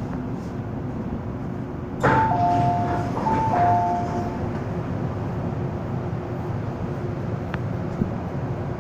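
MTR M-Train standing at a platform with a steady hum, and about two seconds in a two-tone chime plays twice, a high note then a lower one: the door-closing warning before the train pulls away. A small click comes near the end as the train starts to move.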